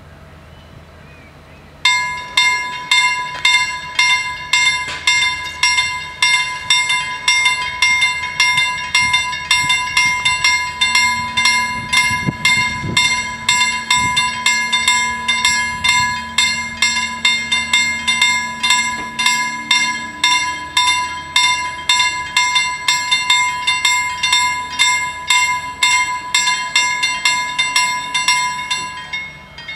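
Level-crossing warning bells ringing in rapid, even strokes, starting about two seconds in as the crossing's lights come on and stopping near the end once the barriers are fully down.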